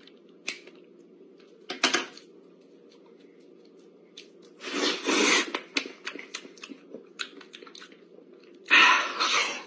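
Someone eating bananas: loud wet chewing and biting sounds in three bursts, about 2 s in, about 5 s in and near the end, with small mouth clicks between.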